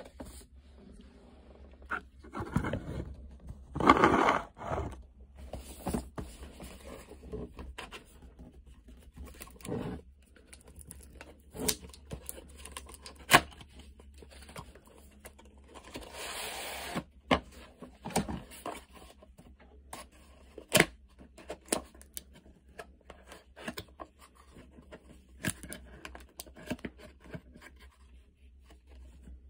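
Cardboard retail box of a mouse being handled and opened by hand: fingers scraping and picking at the box's edge and seal, with scattered sharp clicks and taps of the cardboard. The loudest scraping burst comes about four seconds in, and a longer rasp of paper scraping or tearing comes a little past halfway.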